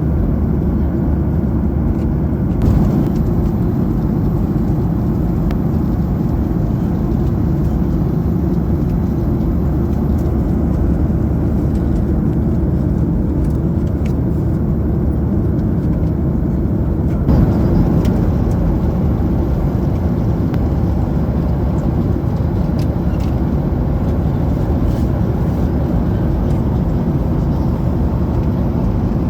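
Steady low rushing cabin noise of a Boeing 737-800 airliner in flight: jet engines and airflow heard from inside the passenger cabin, with a slight lift in level twice.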